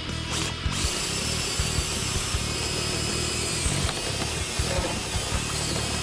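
Cordless DeWalt drill boring through a car's interior quarter trim panel, its motor running with a steady high whine from about a second in.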